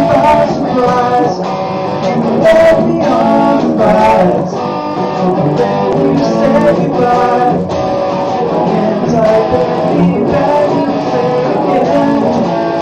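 A song played on guitar with singing, performed live.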